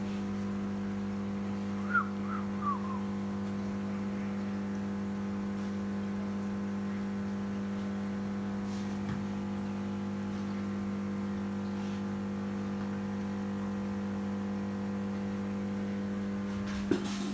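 Steady electrical hum, one unchanging low buzz with evenly spaced overtones. About two seconds in come a few short, high, falling squeaks, and near the end a single click.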